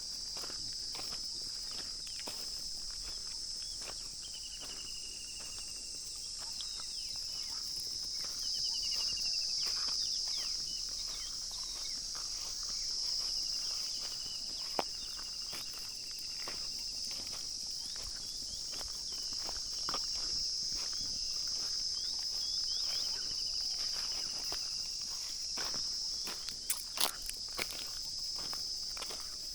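Steady high-pitched chorus of insects buzzing, with shorter chirping trills coming and going over it. Scattered light clicks and ticks, with a sharper knock about halfway through and a few more near the end.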